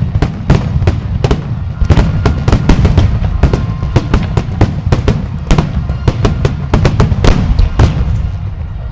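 Fireworks bursting in a rapid barrage, several sharp bangs a second over a continuous deep rumble, easing off near the end.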